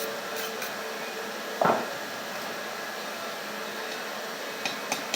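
Coal forge's air blower running steadily while the iron heats, with a single knock about a second and a half in.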